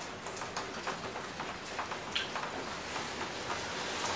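Footsteps on a shop floor: faint, irregular light taps over a low steady hiss.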